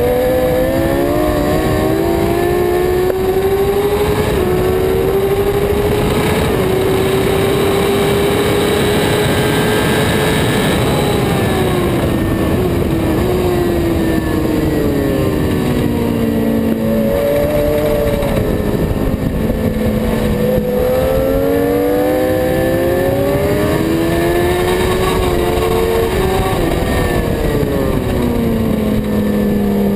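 Superbike engine at speed on a racetrack, heard onboard. Its pitch climbs through the first third, then falls in steps as the bike slows and shifts down, climbs again and drops near the end, all over a steady rush of wind noise.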